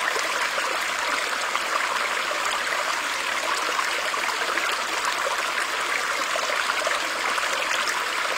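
Apple iOS 15 Background Sounds water track playing back: a steady, even, hissy wash of water noise.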